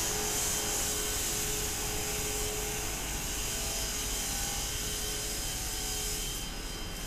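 Cooling tower running: a steady mechanical rush of fan and falling water, with a few faint steady tones over a low rumble.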